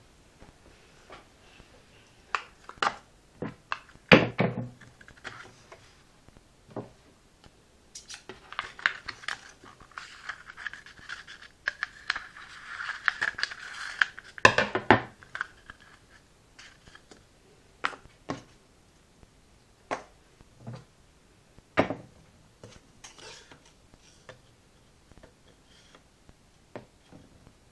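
Small hard objects being handled at close range: scattered clicks and knocks, with several seconds of scraping and rubbing in the middle.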